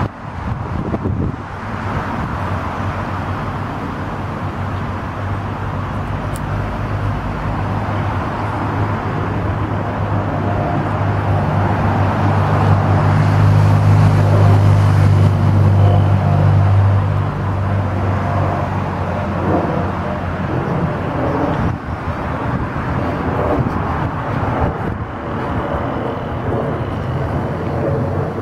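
A low, steady engine drone over an outdoor rumble. It swells to its loudest about halfway through, then eases back down.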